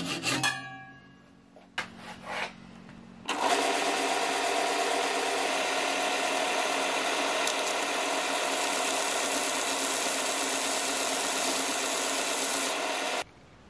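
Sandpaper rubbing on a turned wood-and-resin piece spinning on a lathe stops within the first half second, leaving a low hum and a couple of knocks. About three seconds in, a bench belt sander starts suddenly and runs with a steady rasp as the piece's turned wooden base is sanded flat against the belt, then cuts off abruptly near the end.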